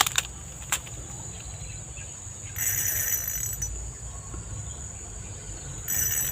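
Insects shrilling steadily in a high, continuous chorus that swells louder twice, over a constant low rushing noise, typical of fast river water.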